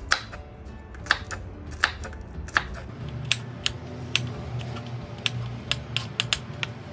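Small kitchen knife chopping garlic cloves on a wooden cutting board: about a dozen sharp, irregular taps of the blade on the wood, a few a second.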